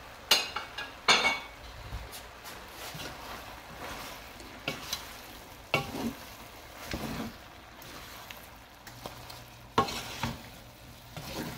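Wooden spatula stirring chopped peppers, tomato, mushrooms and ground chicken in a nonstick pan, scraping and knocking against the pan over a faint sizzle as they sauté. The two loudest knocks come in the first second or so, then scrapes and knocks follow every second or two.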